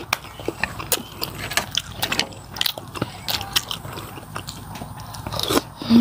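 Close-up eating sounds from a bowl of beef noodle soup: chewing and biting food, a steady string of short wet clicks and smacks.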